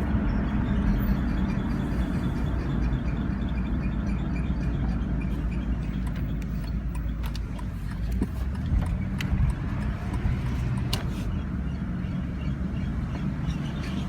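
2000 Jeep Grand Cherokee with a steady low road-and-engine rumble and a faint high squeak repeating a few times a second. A couple of sharp clicks come about two-thirds of the way through.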